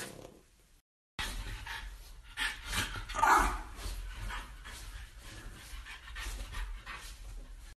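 French bulldog panting rapidly in quick, even breaths, with one short bark about three seconds in. A brief gap of silence about a second in.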